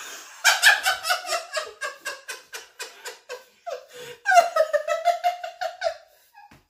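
A person laughing hard: a run of rapid laughs, about five a second, then a long, high, wavering laugh about four seconds in.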